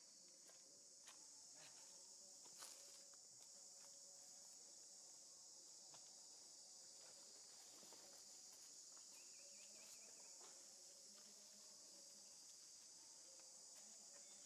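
Faint, steady high-pitched drone of forest insects, with a few soft clicks.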